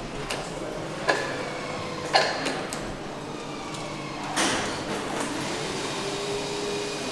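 Engine assembly-line workshop sounds: two sharp metal clicks about one and two seconds in, a short hiss about four seconds in, and a faint steady tone near the end, over a steady background hum.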